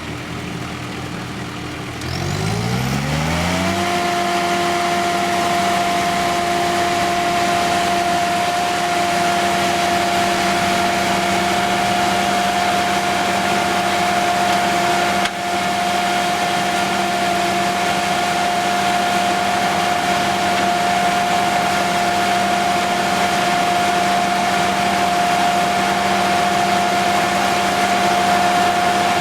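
The sawmill's 62 hp Perkins diesel engine idling, then revving up smoothly over about two seconds to a steady high speed, which it holds.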